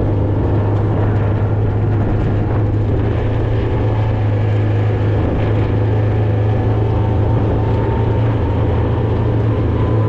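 A steady, loud engine drone with a strong low hum that does not change.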